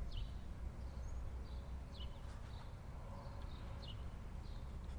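Outdoor ambience: a steady low rumble of wind on the microphone, with short high falling bird chirps repeating about once a second.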